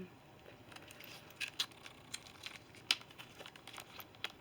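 Quiet handling of small soldering-kit parts such as replacement tips: scattered light clicks and soft rustling, with one sharper click about three seconds in.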